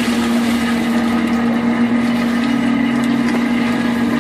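Fishing boat's engine running with a steady, unchanging hum.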